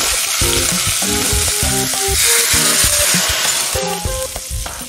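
A tempering of fried shallots and crushed chilli in hot oil sizzles loudly as it is poured into a pot of cooked spinach and dal curry. The sizzle is strongest about two seconds in and dies down near the end.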